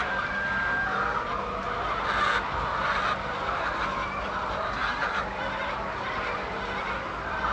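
A flock of chickens clucking and squawking together in a steady, dense din, with a faint steady hum underneath.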